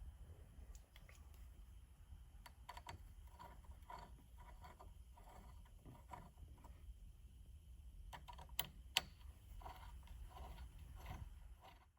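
Faint, irregular clicks and taps of a hand tool loosening the socket head bolts that hold a steering wheel to its hub, with two sharper clicks in quick succession about two-thirds of the way through.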